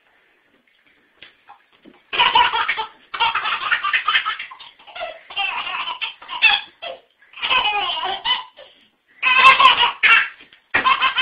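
A baby laughing in repeated bursts with short pauses, starting about two seconds in.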